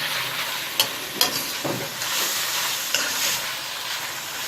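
Chicken, carrot and capsicum sizzling as they are stir-fried in a pan, with the spatula clicking against the pan a few times.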